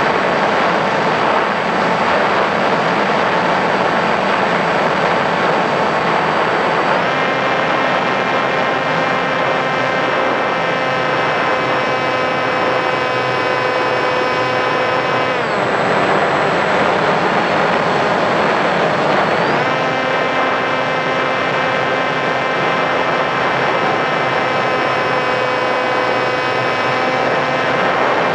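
Electric motor and propeller of a Sky Surfer RC foam glider running in flight, a steady whine over a rush of wind on the onboard microphone. The pitch steps up about a quarter of the way in as the throttle opens, drops back a little past halfway, and rises again about two-thirds through.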